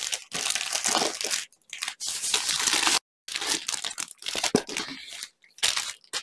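Clear plastic sleeve crinkling loudly as a rolled diamond-painting canvas is pulled out of it, in several stretches of rustling with short pauses between.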